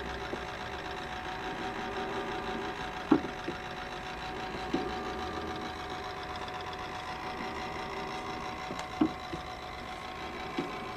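Electric-driven working model of a Watt beam steam engine running: a steady mechanical whirr with a faint whine, broken by four sharp knocks at uneven intervals from the moving linkage.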